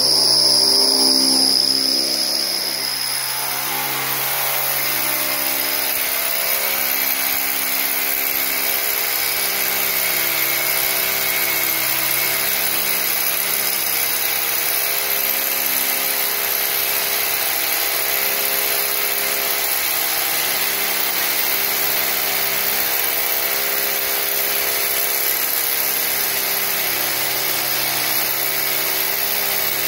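Corded electric hammer drill running steadily as its long bit bores a hole down through a wooden floor, drilling holes for a termiticide treatment. It is loudest in the first few seconds, then holds steady.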